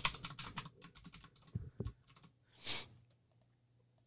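Quick typing on a computer keyboard for about a second, then two single clicks and a short hiss about two and a half seconds in.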